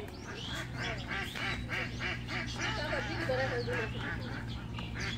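Waterfowl calling in a quick run of short calls, about four a second, over a steady low hum.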